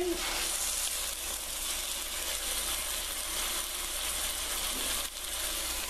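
Chicken breast frying in oil in a pan, a steady sizzle with a brief lull about five seconds in.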